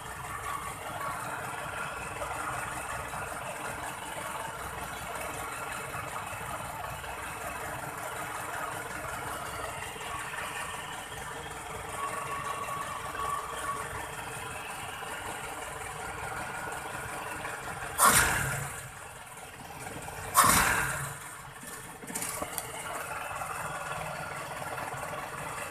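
Toyota Kijang's carbureted petrol engine idling steadily. Near the end come two short, loud bursts about two seconds apart as the throttle is blipped, to make the newly fitted distributor vacuum advance move in and out.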